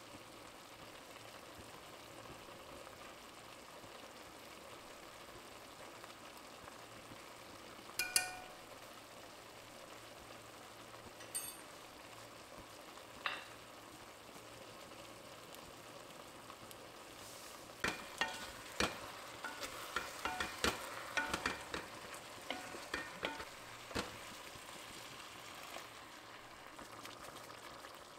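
Chicken pieces and spices sizzling quietly in a pot. A few ringing clinks come first, then, in the second half, a run of sharp knocks as a wooden spatula stirs against the pot.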